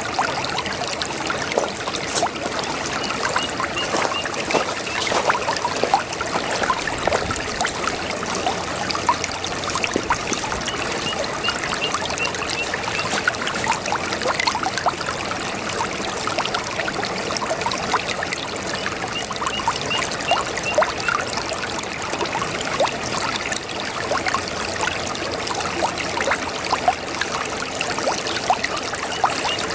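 Shallow brook babbling: water running and trickling over stones with a steady rush and constant small gurgles and splashes.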